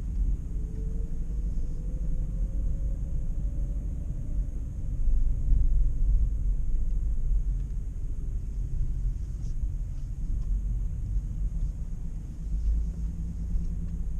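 A car driving: a steady low rumble of engine and road noise, with a faint engine note rising over the first few seconds as it speeds up.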